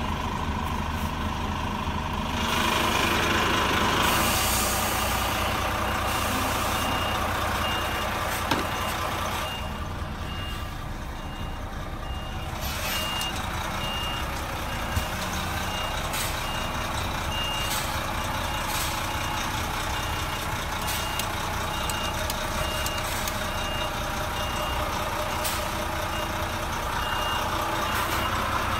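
Renault T460 truck's diesel engine running as it reverses, its reversing alarm beeping about twice a second from about six seconds in. A burst of air hiss a couple of seconds in.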